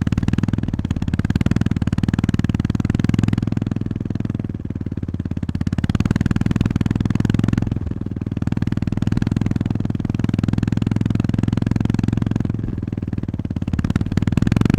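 Honda GB350S single-cylinder engine and exhaust under way, heard close up as a rapid, steady low thudding. The engine note eases off and picks up again a few times, as the throttle is closed and reopened.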